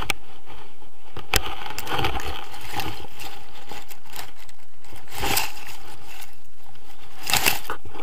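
Rustling and crackling handling noise as tall grass and harness brush against the camera microphone, in several irregular bursts.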